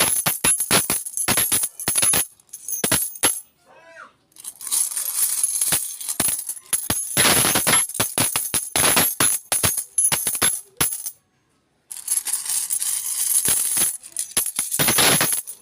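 Coins rattling and clinking in repeated bursts of shaking and spilling, with bright metallic ringing and a short silence about eleven seconds in.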